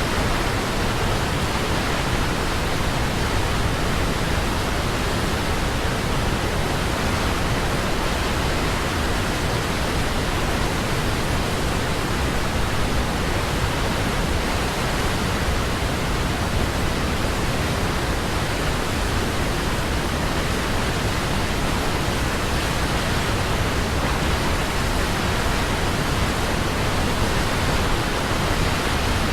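Glanni waterfall on the Norðurá river: a steady, loud rush of falling water.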